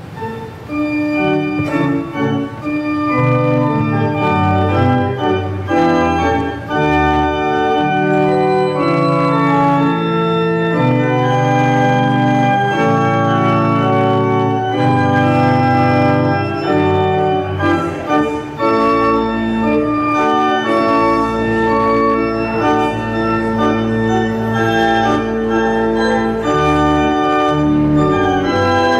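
Church organ playing the postlude: sustained chords that change every second or so, with deep bass pedal notes joining about two-thirds of the way in.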